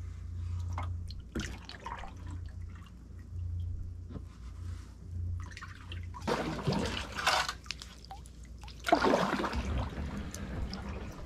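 Water dripping and splashing around a plastic kayak as it is paddled, with small knocks and trickles and two louder sloshing stretches, about six and nine seconds in.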